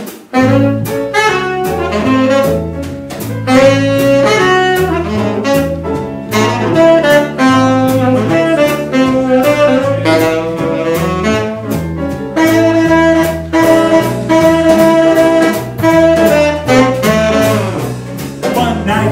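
Small jazz band playing live: tenor saxophone carrying the melody over piano, upright bass and drums. The band comes in suddenly at the start.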